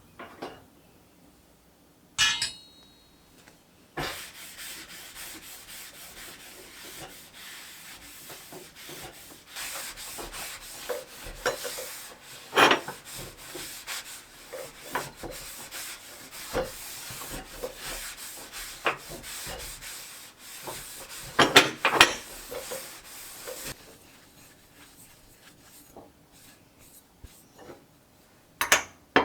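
Hands rubbing and scrubbing steadily over a hard kitchen surface for about twenty seconds, with a few louder knocks and clacks along the way.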